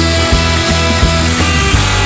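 Rock background music with a driving beat of drums and bass guitar.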